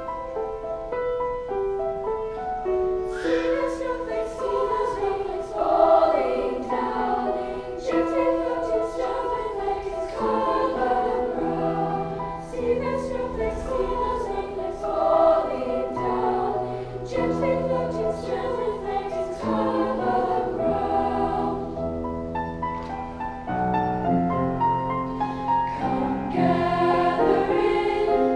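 Junior high school choir singing, many voices together in held notes that move step by step; lower notes join in about twelve seconds in.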